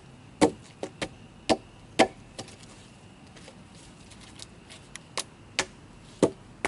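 Hatchet chopping into a log: a quick run of sharp, separate chops, a pause of about three seconds, then four more chops near the end.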